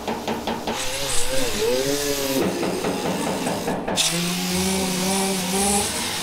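Power tools sanding paint off truck body panels: a tool's whine rising and falling in pitch, then a steady-running tool with a hissing grind starting suddenly about four seconds in.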